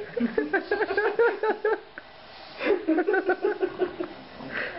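A person laughing in two bouts of quick, evenly repeated ha-ha pulses, the second starting a little over halfway through.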